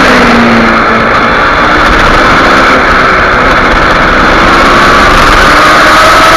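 Kawasaki Ninja 250R's parallel-twin engine under load on track, with heavy wind rush on the tank-mounted microphone. The engine runs lower and steadier as the bike leans through a corner, then its pitch rises near the end as it accelerates out.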